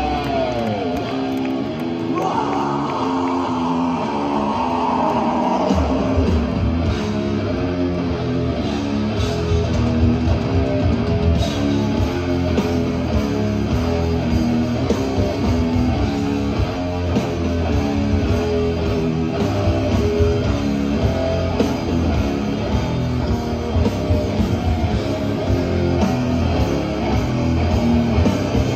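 A death metal band playing live: distorted electric guitars over bass and drums in a steady riff. At the start a guitar note slides down in pitch, and about six seconds in the drums and bass come in heavily under the riff.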